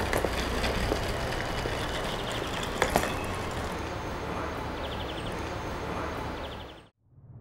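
Railway station platform ambience: a steady low hum and background noise, with a couple of sharp clicks about three seconds in, fading out abruptly near the end.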